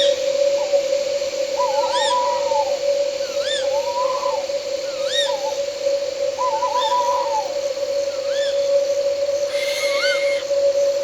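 Owls calling at night: short whistled notes that rise and fall, repeating about every second and a half, with longer wavering, quavering calls in between during the first several seconds. A steady droning tone of night insects runs underneath.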